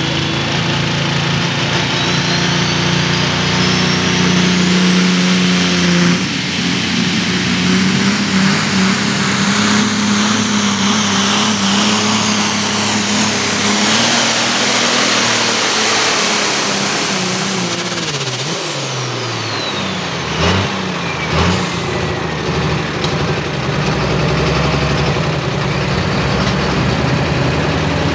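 Modified turbo pulling tractor in Ford 9000 sheet metal making a full-throttle pull: the engine runs hard under load while a turbo whine climbs steeply over the first few seconds and holds high. About two-thirds through, the throttle comes off and the whine falls away, with two short knocks, and the engine settles to a lower idle for the rest.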